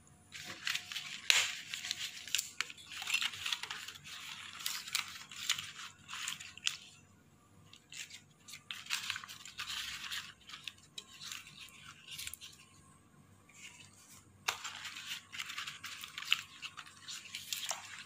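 Broad fresh leaves rustling and crinkling in the hand as they are laid over herbs in a pot of water, in irregular bursts with a couple of sharper clicks and two quieter pauses.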